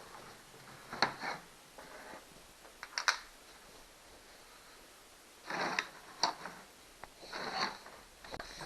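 Handling noises from a partly dismantled chainsaw: a few short rubs and clicks of plastic and rubber parts as a rubber handle is pushed back into place.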